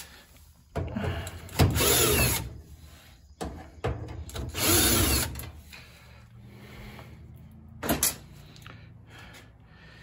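Cordless drill-driver with a number two Phillips bit whirring in two short bursts about three seconds apart, backing out two screws from a dryer cabinet. A single sharp knock comes near the end.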